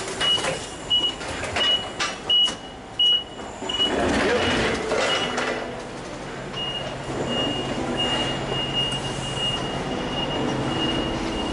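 Forklift reversing alarm beeping about one and a half times a second, with a clattering rumble about four seconds in. From a little past halfway the alarm sounds as one steady unbroken tone at the same pitch.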